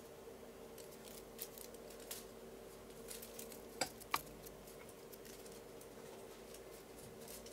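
Quiet room tone with a steady faint hum and scattered small clicks, two sharper clicks close together about four seconds in.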